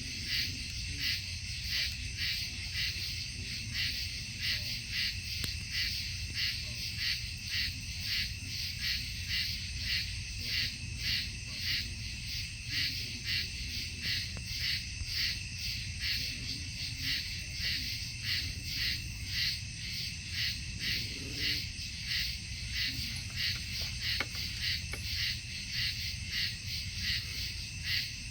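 Night insects chirping in a steady, even rhythm, about one and a half pulses a second, over a low steady rumble.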